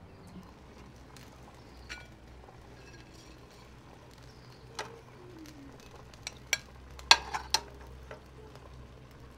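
Kitchen clatter: a handful of sharp metallic clinks of utensils against pots and dishes, sparse at first and bunched together in the second half, over a low steady hum.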